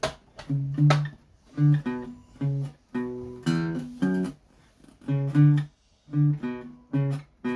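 Acoustic guitar played solo, plucked chords in a steady rhythm of about two to three a second, each struck sharply and dying away before the next.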